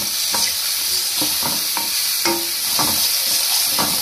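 Chopped tomatoes, onion and spices sizzling in oil in a steel kadhai while a metal spoon stirs and scrapes the pan: a steady hiss of frying under irregular scraping strokes, about two or three a second. The tomatoes are being cooked down until soft.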